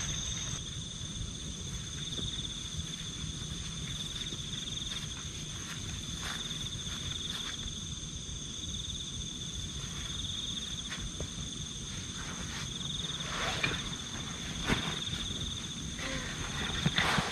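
Night insects trilling steadily: a high, finely pulsing trill with a second, higher steady tone, over a low rumble. A few soft knocks come near the end.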